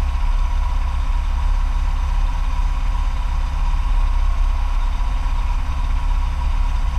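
Motorcycle engine idling steadily, picked up by a camera mounted on the bike itself.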